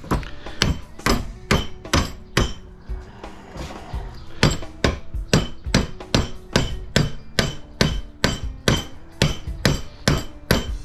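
Steady hammer blows on metal, about two a second with a short pause a couple of seconds in. The blows are driving at a light-fixture transformer's copper winding clamped in a vise, which is held tight in its steel core by shellac.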